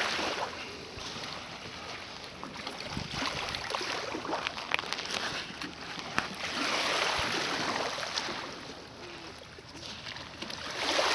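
Small waves lapping at the shoreline, with gusts of wind on the microphone that rise and fall.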